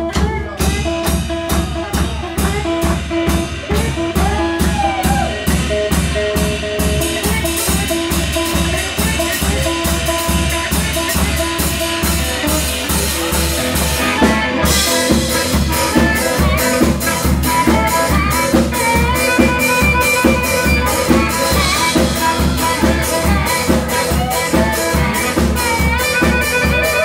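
Live blues band playing an instrumental passage: drum kit keeping a steady beat under a strummed archtop electric guitar. The cymbals open up about halfway through, and a harmonica played into a microphone carries wavering lines over the band in the second half.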